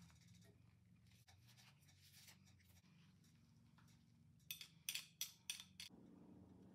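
Metal garlic press crushing a garlic clove, with a knife scraping the pressed garlic off the press over a small bowl: faint clicks and scrapes, then a quick run of about five sharp scrapes and taps about two-thirds of the way through.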